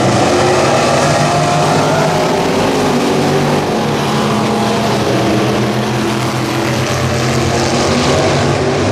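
Street stock race cars' engines running hard around the track, the engine notes rising and falling as the cars go through the turns.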